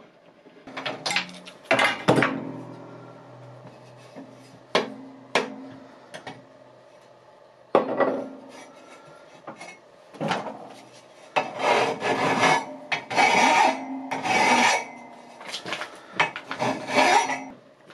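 Flat hand file rasping across the cut end of a thin steel pipe held in a vise, deburring the cut, in a run of strokes through the second half. Before it come a few sharp metal knocks.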